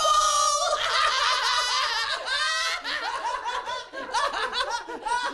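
High-pitched laughter: a quick run of short, repeated laughs.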